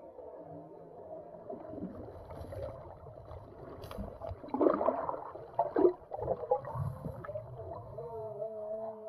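Muffled underwater sound of moving, gurgling water, with louder surges about halfway through and a low wavering hum near the end.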